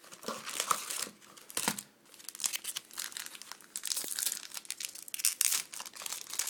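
Foil wrapper of a Fleer basketball card pack crinkling and tearing as it is opened by hand, in an irregular crackle.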